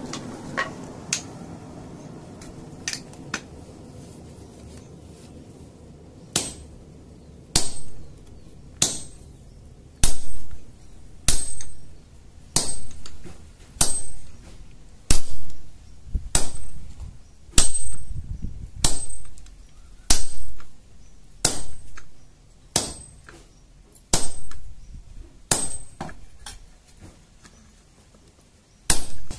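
Blacksmith's hammer striking steel on an anvil while forging a blade, a few light taps and then steady heavy blows, roughly one every second and a quarter, each ringing briefly.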